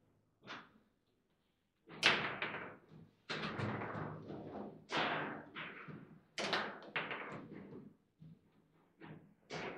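Foosball table in play: a quick, irregular series of sharp knocks and clacks as the ball is struck by the rod-mounted figures and bounces off the table walls, with rods slamming. Quiet for about a second near the start, then the knocks come thick and fast.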